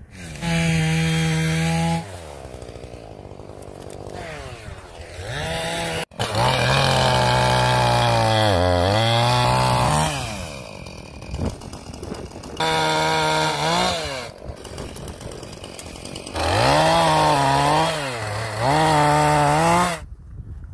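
Two-stroke chainsaw revving to full throttle in four bursts and dropping back to idle between them, its pitch sagging and wavering as the chain bites into birch logs.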